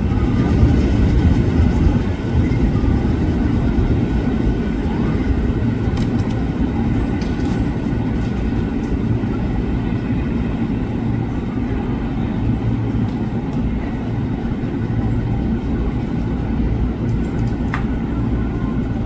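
JR 205 series electric commuter train rolling along the station tracks: a steady low rumble of wheels and traction motors, with a few sharp clicks from the rails.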